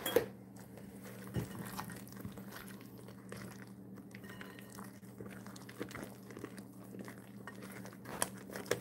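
A spatula folding whipped topping into a thick fruit-and-nut mixture in a glass mixing bowl: soft, irregular scraping and stirring, with a few light clicks of the spatula against the glass near the end.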